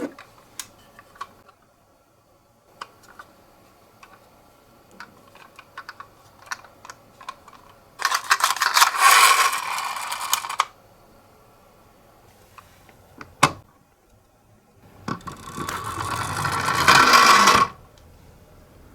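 Toy ambulance minicar rolling and rattling down a slope twice, each run about two to three seconds, the second growing louder as it gathers speed. Scattered light clicks of the toy being handled come before and between the runs.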